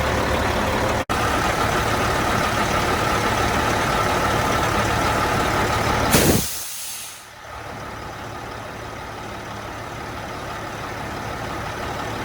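Cat C15 diesel of a Freightliner Classic truck running steadily, then about six seconds in a short, loud blast of air as the newly fitted Bendix AD-9 air dryer purges; the engine runs on more quietly afterwards.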